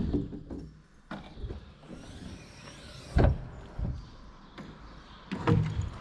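A few dull thumps or knocks, the strongest about three seconds in and again near the end, over faint background noise.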